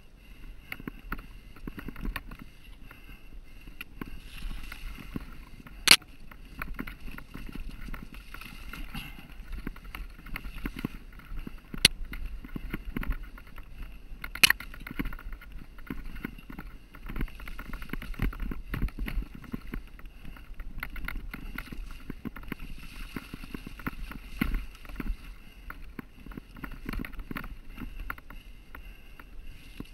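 Mountain bike riding down a rocky dirt singletrack: a continuous rattle and clatter of tyres over stones and roots and the bike shaking. Three sharp knocks stand out, about six, twelve and fourteen and a half seconds in.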